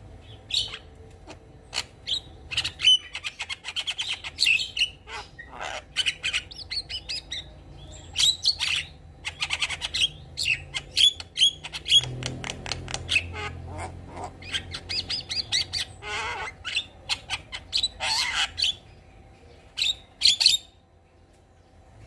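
Javan myna singing a long varied song of rapid chattering runs, sharp clicks and squawks, stopping shortly before the end.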